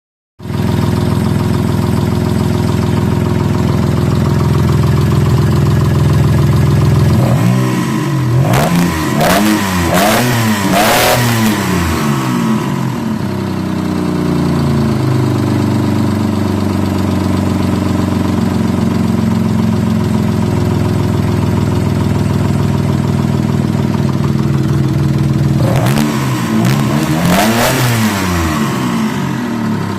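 Engine idling, revved in several quick throttle blips about a third of the way in and again near the end, running to show a knock that the owner hears from it.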